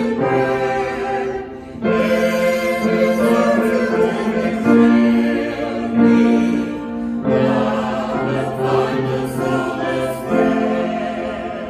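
A choir singing slow, sustained chords in a sacred choral piece, with brief breaks between phrases and the sound growing softer near the end.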